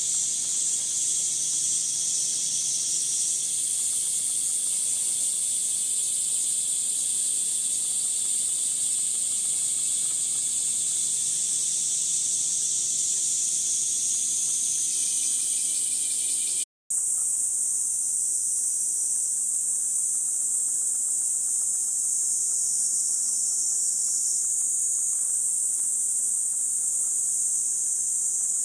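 Chorus of cicadas, a steady high-pitched shrill drone. A second, lower-pitched layer fades out partway through, and the sound cuts out completely for an instant about two-thirds of the way in.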